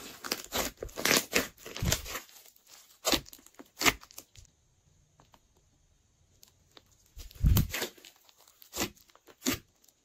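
Hands squishing and pressing fluffy slime, with irregular sharp crackles and pops as air pockets burst. It pauses from about four to seven seconds, then starts again with a loud cluster of pops.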